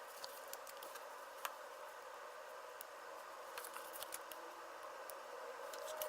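Faint, scattered small clicks and taps of hands handling a small vinyl toy figure and peeling sticker sheet, over a steady low hiss.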